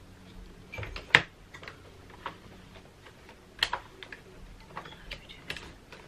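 Hard plastic parts of a Shark upright vacuum cleaner clicking and knocking as a part is fitted onto its body by hand: a handful of sharp clicks, the loudest about a second in and another strong one at about three and a half seconds.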